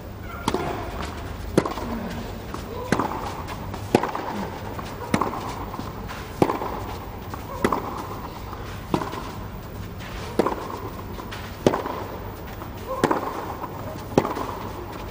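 Tennis ball struck back and forth by rackets in a long baseline rally, starting with the serve about half a second in: a sharp pop about every second and a quarter, around a dozen shots in all.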